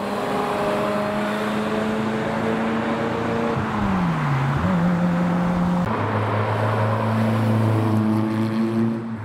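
Ferrari F355's V8 engine passing at steady revs, its pitch falling away about four seconds in. About six seconds in, a second sports car, a TVR, comes through with a deeper, steady engine note.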